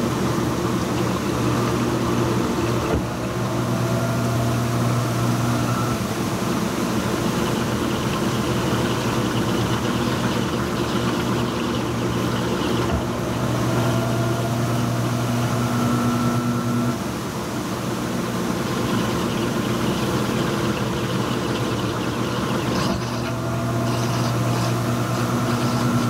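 Panasonic NA-F180P7T top-load washing machine running through its wash cycle with a steady motor hum. The hum swells and falls back in cycles about ten seconds apart, and a faint whine rises in pitch during each swell.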